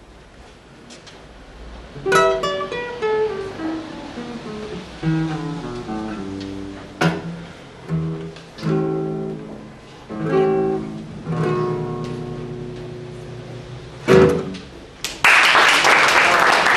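Solo acoustic guitar played without singing: after about two quiet seconds, a descending run of plucked notes, then picked and strummed chords, closing on a final strummed chord about 14 seconds in. Applause breaks out about a second later, at the end of the piece.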